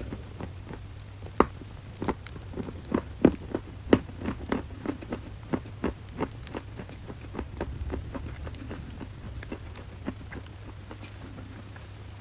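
Dry 'Creme Brulee' crunchy clay crunching and crackling in sharp, irregular snaps, thickest in the first half and thinning out later, over a steady low hum.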